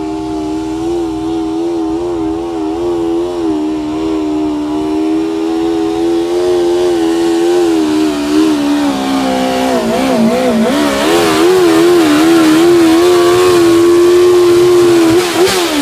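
Pulling garden tractor's small engine running at high, steady revs while dragging a weight-transfer sled. About nine seconds in, the pitch starts to waver and sag as the sled's load builds, then holds high again and falls away near the end as the pull stops.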